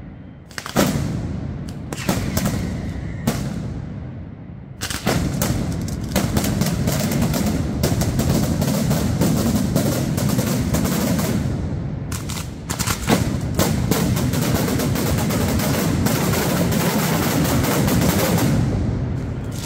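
Mascletà firecrackers bursting: first a few separate bangs, then, from about five seconds in, a dense rapid-fire barrage of explosions that keeps up almost to the end.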